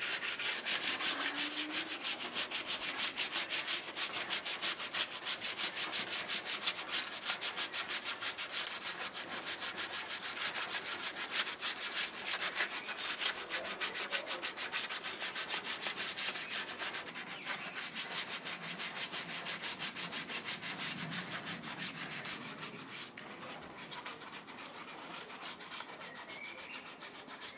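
Hand-sanding along a peeled wooden walking stick: quick back-and-forth rubbing strokes, about three a second, growing fainter over the last few seconds.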